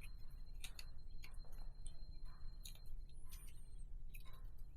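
Faint, irregular light clicks and ticks of piston rings being handled and fitted onto an engine piston, about one every second or so.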